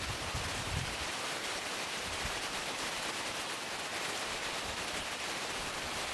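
Steady outdoor hiss of wind, with a few soft low puffs of wind on the microphone within the first second.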